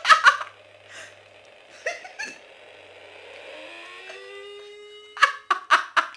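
Wireless doorbell chime with a nearly dead battery, sounding a drawn-out electronic tone that slides upward in small steps about four seconds in. Short sharp sounds cut across it: two at the start, two around two seconds in, and four in quick succession about five seconds in.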